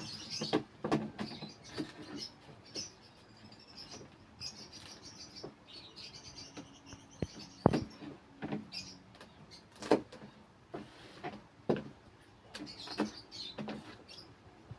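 Scattered sharp taps and clicks from hand-preparing leafy vegetables, with high chirping from pet African lovebirds in the background.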